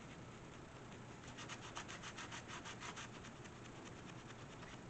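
Pen scribbling on a paper craft page: quick back-and-forth strokes, about eight a second, from about a second in to about three seconds in.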